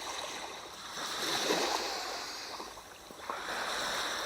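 Sea waves washing in: the surf swells about a second in, eases off, and swells again just after three seconds.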